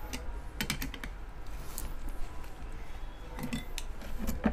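Scattered small metallic clicks and taps in a few clusters, the loudest near the end: pliers working the end-cover screws of an air cooler motor, tightened one by one after new shaft bushes are fitted.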